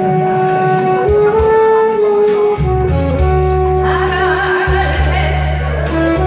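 Korean trot song music with a steady beat and long held melody notes.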